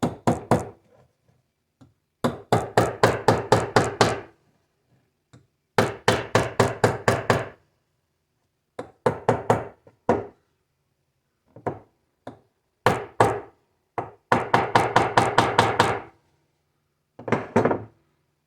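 Runs of quick, light hammer taps, about five a second, driving a Cummins crankshaft seal down onto its installer tool, in several bursts of a second or two with short pauses between.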